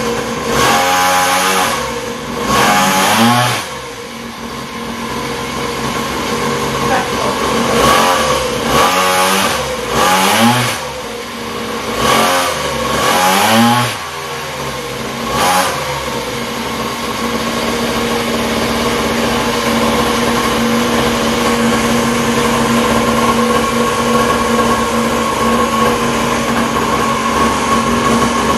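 Small engine of a mini kids' ATV on a chassis dyno, blipped up in about seven short revs with rising pitch, then held running steadily for the second half, gradually getting louder, during a power test.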